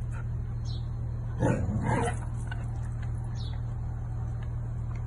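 A young golden retriever gives one short, low two-part vocalisation about a second and a half in, reacting to its reflection in a mirror, over a steady low hum.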